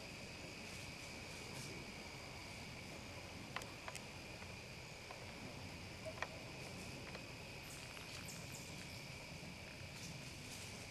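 Steady chorus of crickets trilling, with a few brief sharp clicks around four and six seconds in.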